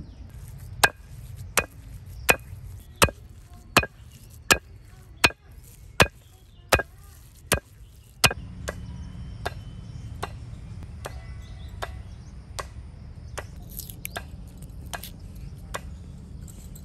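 Raw chicken being pounded into mince with a wooden hammer: about eleven sharp, evenly paced blows, roughly one every three-quarters of a second. After about eight seconds the blows stop and only fainter, lighter ticks remain.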